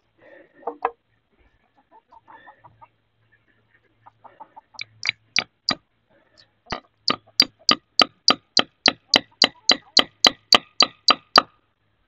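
Hammer tapping a spile into a freshly drilled taphole in a maple tree. Four sharp taps come about five seconds in, then a steady run of about twenty taps, roughly four a second, stopping near the end.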